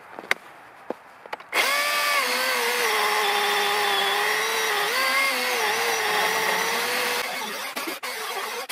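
Milwaukee M18 cordless chainsaw starting up about a second and a half in and cutting through a log: a steady electric motor whine whose pitch sags as the chain bites into the wood. It stops suddenly near the end.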